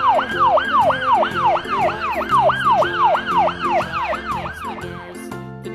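Police car siren in a fast yelp, its pitch sweeping up and down about three times a second, over light background music. The siren stops about a second before the end.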